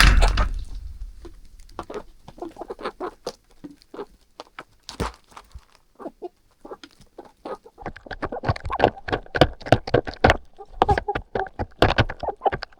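Domestic chickens clucking in a series of short calls that grow busier in the second half, after a loud knock at the start.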